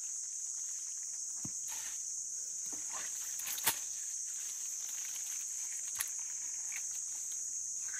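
Steady high-pitched chorus of crickets, with a few scattered knocks and rustles; the sharpest knock comes a little under four seconds in.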